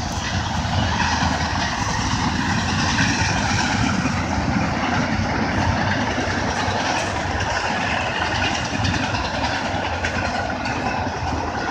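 CSX intermodal freight train passing at close range: a steady, unbroken rumble of wheels on the rails, with faint clicks from the rail joints.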